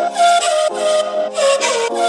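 Background instrumental music with a steady beat and a pitched melody.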